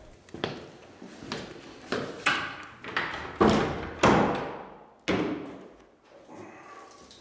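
A string of echoing knocks and thuds in a toilet room: footsteps coming in, then a cubicle door banging shut with a louder knock about a second later. The hits grow louder up to the door bang near the middle, and then it goes quiet.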